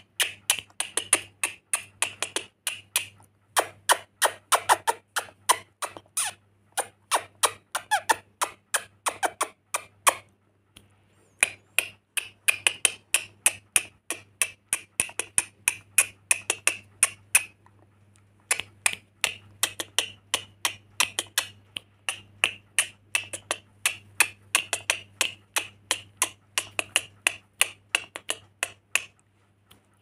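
Rainbow lorikeet chattering: a rapid, even string of short clicking chirps, about five a second, in long runs broken by brief pauses around 10 and 18 seconds in. A faint steady low hum sits underneath.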